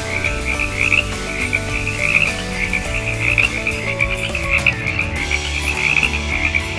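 A chorus of frogs croaking: many rapid, clustered calls repeating continuously, over steady low sustained tones.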